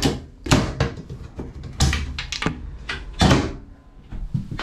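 Wooden louvered hatch lids being handled and set down on the fibreglass cabin surfaces: a series of sharp wooden knocks and clatters.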